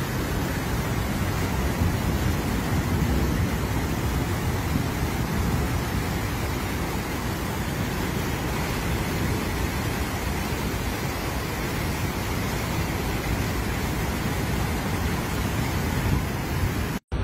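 Fast-flowing floodwater rushing in a steady, even noise, with a brief sudden dropout right at the end.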